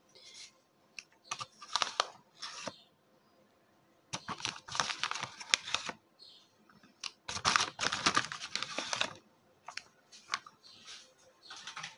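Metal spoon scooping vanilla custard powder and tipping it into a glass bowl of milk: several bursts of scraping and crunching with sharp clicks of the spoon, the longest two each lasting a second or more.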